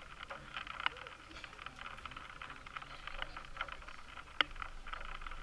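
Outdoor ambience of a football match: a steady hiss with scattered sharp clicks and knocks, the loudest about four and a half seconds in.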